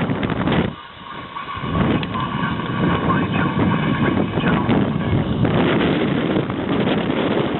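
Wind buffeting the microphone aboard a sailing yacht under way. From about a second in until past halfway, a steady high-pitched hum of several tones runs over the wind noise.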